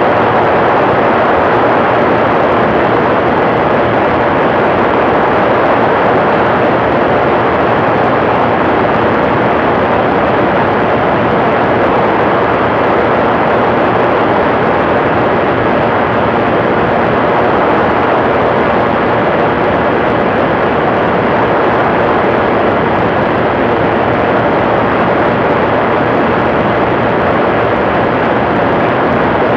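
TrueLite Part 103 ultralight aircraft in flight, its engine running steadily, blended with a steady rush of air.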